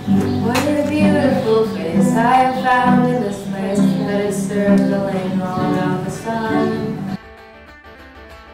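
Young girls singing together to a strummed acoustic guitar, a live amateur performance. About seven seconds in it cuts off abruptly, and softer guitar music carries on.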